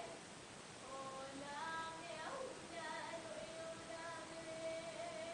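A woman's voice singing long held notes, each sustained for a second or more, with a few steps in pitch.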